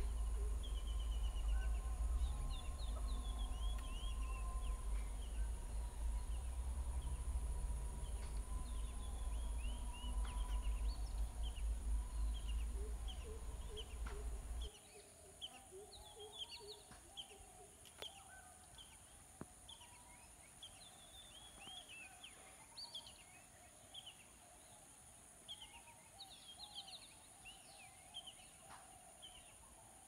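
A flock of lesser whistling ducks calling: many short, thin whistles over and over. A low rumble runs under the first half and stops abruptly about halfway through.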